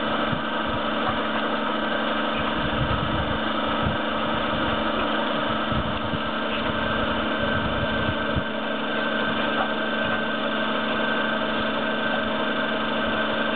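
A motor running with a steady, even hum, with low rumbles coming and going during the first two-thirds.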